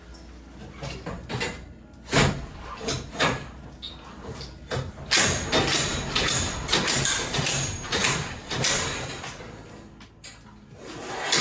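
Garage door torsion spring hardware being worked with hand tools: a run of metal knocks, clanks and rattles, busiest about halfway through.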